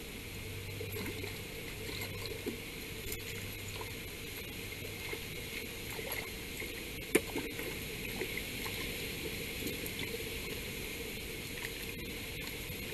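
Water sloshing and small splashes at the river's edge as a hooked mullet is played and brought to a landing net, with a sharp click about seven seconds in.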